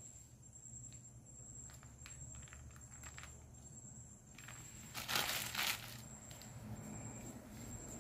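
Faint handling sounds as a cake is trimmed and evened up on the work surface: scattered soft taps, and a brief louder scraping rustle about five seconds in.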